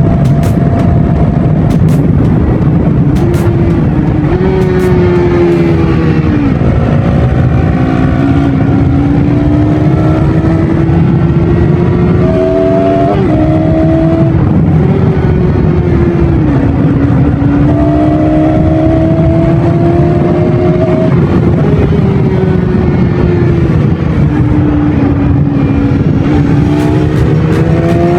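Bajaj Pulsar NS200's single-cylinder engine on its stock exhaust, running under heavy, continuous rumbling noise. Its pitch climbs slowly and then drops sharply about half a dozen times, as with the throttle opened and gears changed.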